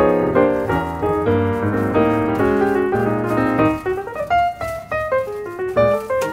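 Background piano music, a melody over chords with notes changing quickly.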